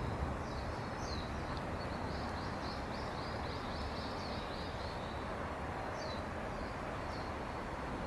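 A small bird chirping in a quick run of short high notes, then a few more near the end, over a steady background hiss and low rumble.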